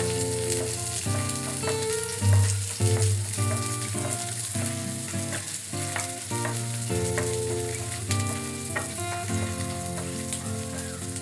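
Garlic cloves and dried red chillies sizzling in oil in a nonstick frying pan, stirred with a wooden spatula that scrapes and taps against the pan. Soft background music with held notes runs underneath.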